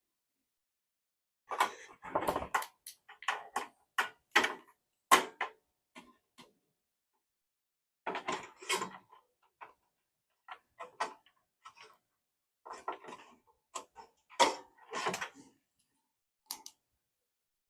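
Irregular clicks, taps and knocks of hands working plastic parts inside a small desktop computer case, around the front power-switch assembly and its wiring.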